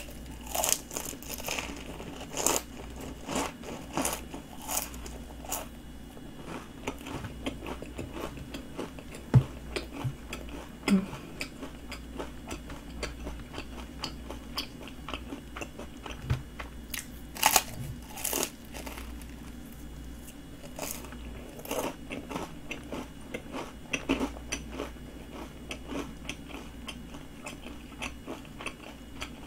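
Close-miked biting and chewing of a flaky twisted pastry: crisp crunches and crackles of the crust at irregular intervals, with a few louder crunching bites scattered through.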